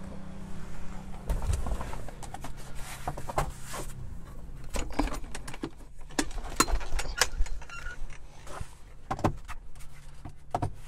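Jeep Wrangler JK soft top being unlatched at the windshield header and folded back by hand: a run of irregular clicks, knocks and rattles from the latches and top frame, over a low steady hum.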